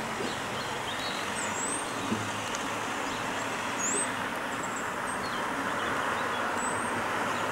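Heritage railway coaches rolling along the track in the distance, a steady rush of wheel and rail noise with a low hum beneath. Small birds give several short, quick rising chirps above it.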